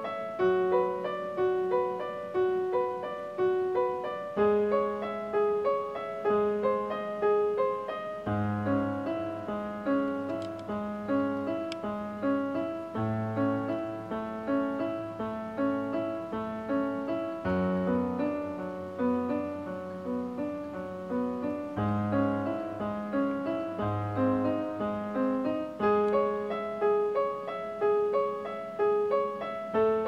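Piano music: an evenly repeating figure of notes, about two a second, over low notes that change every few seconds.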